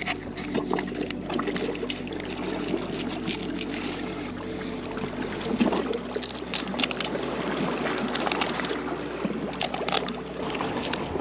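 Shallow seawater splashing and trickling with scattered sharp splashes, as a fish is filleted with a knife in the water.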